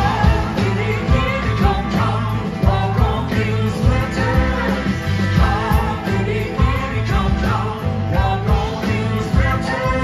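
Live rock band playing: a male lead vocal over electric guitars, organ, bass and drums, with a female voice also singing near the end.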